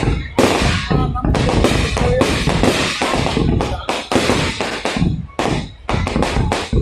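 Fireworks barrage: aerial shells bursting in quick succession, a dense run of bangs and crackling that thins briefly about five seconds in.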